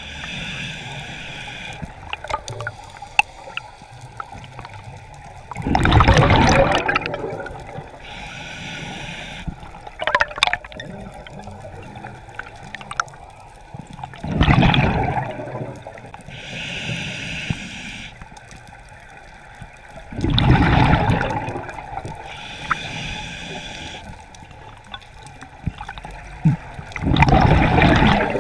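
Scuba diver breathing through a regulator underwater: a soft hiss on each inhalation, then a loud gurgling rush of exhaled bubbles, about every six to seven seconds, four exhalations in all.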